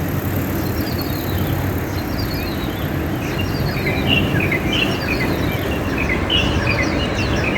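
Strong wind rushing over the microphone, with a distant ciblek sawah (prinia) singing a quick series of short chirping notes behind it, the song getting busier after about three seconds.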